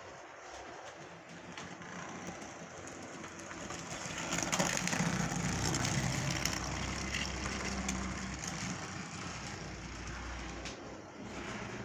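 Model train running along its track past the microphone, a rumbling clatter that swells about four seconds in, is loudest for a few seconds, then fades as it moves away.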